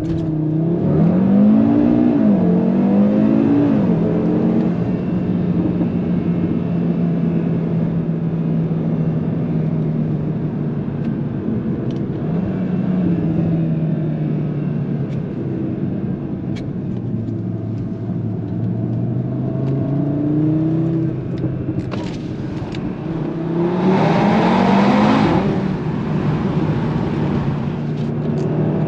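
Audi RS3 sedan's turbocharged 2.5-litre five-cylinder, with its particulate filter and resonator deleted, accelerating through the gears in the first few seconds, with the pitch climbing and dropping at each upshift. It then cruises steadily, and pulls hard again near the end.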